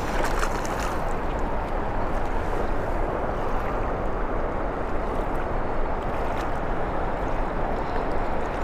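River water flowing steadily, an even rushing noise with no breaks.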